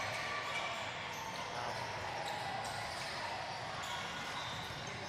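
Gym sound of a youth basketball game in play: a basketball dribbled on the court and players moving, over a steady murmur of voices in the hall.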